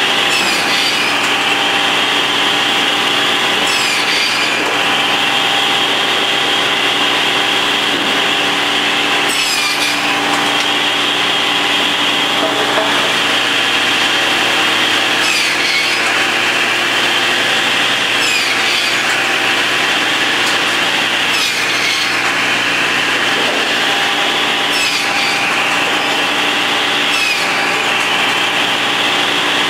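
Sawmill saw machinery running, with a steady high whine over a mechanical hum. The whine dips briefly every three to six seconds as boards are cut, and each dip brings a short scraping sound.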